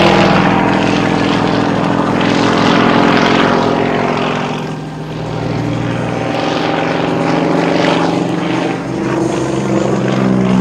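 Pitts Model 12 aerobatic biplane's radial engine and propeller running hard overhead, the drone rising and falling in pitch and loudness as the aircraft climbs vertically and tumbles, dipping briefly about halfway through.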